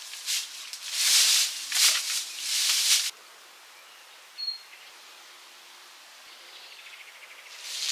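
Several bursts of scratchy rustling from hands at work, which stop abruptly about three seconds in. A quiet outdoor background follows, with a single short bird chirp, before the rustling starts again near the end.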